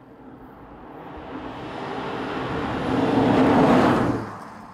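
Audi RS3's 2.5-litre turbocharged five-cylinder engine as the car approaches and passes close by. Its note grows steadily louder to a peak about four seconds in, then falls away quickly as it goes past.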